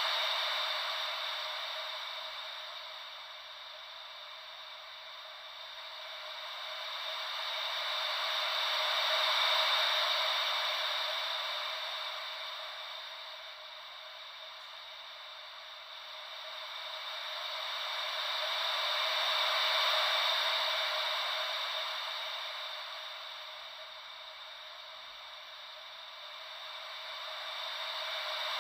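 Filtered white noise made to imitate gentle ocean waves, a hiss with no low rumble that swells and fades smoothly about every ten seconds.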